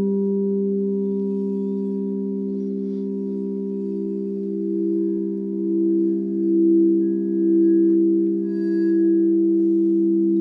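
Sound-healing drone billed as 432 Hz and 528 Hz frequencies: several steady tones held together, singing-bowl-like, one of them slowly swelling and pulsing. Faint high chime-like tinkles come about three seconds in and again near the end.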